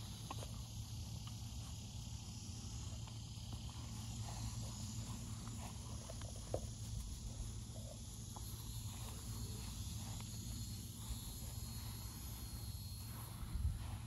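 Steady outdoor ambience with a high insect chirr and a low hum, with a couple of brief, faint squeaks from the small puppies playing on the grass, one about halfway through and one near the end.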